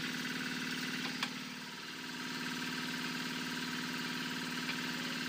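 Diesel engine of a well-drilling rig running steadily. About a second and a half in, its speed and level dip briefly under load, then recover.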